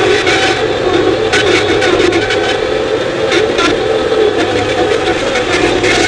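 Skid steer loader's diesel engine running steadily while the machine works a bucket of frozen dirt chunks, with a few short knocks or rattles from the machine.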